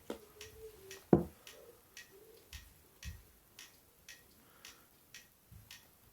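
A clock ticking steadily about twice a second, with handling knocks and rubs as a rubber case is worked off a smartphone; the loudest is a sharp knock about a second in.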